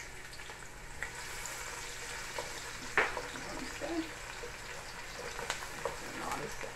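Chopped onion and garlic sizzling as they fry in a large aluminium pot, stirred with a wooden spoon that scrapes and clicks against the metal. A sharp knock comes about three seconds in.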